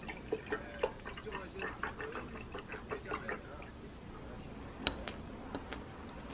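Milk glugging and splashing as it is poured from a carton into a glass tumbler, for about three and a half seconds. Then a knife and fork cutting French toast, with a sharp click of cutlery against the plate about five seconds in.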